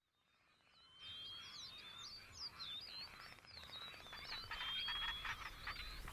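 Field ambience of a chorus of many small animals making high, quick, sweeping chirps, with a long thin whistle rising slightly through it. It starts about a second in, after a moment of silence.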